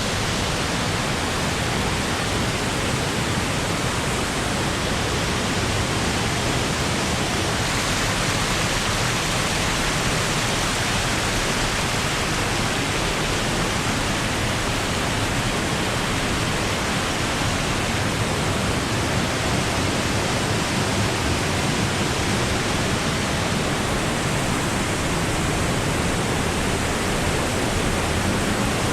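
Waterfall pouring in a steady, unbroken rush of falling and splashing water.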